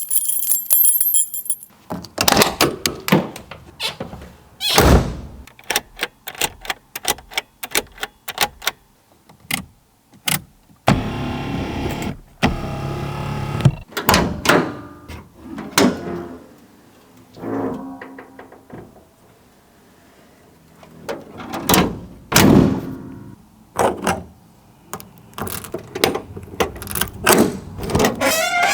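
A run of clicks, latches and thunks from the body hardware of a 1978 Mercury Cougar XR7 being worked, such as doors, latches and switches. There is a steadier sound lasting about three seconds near the middle.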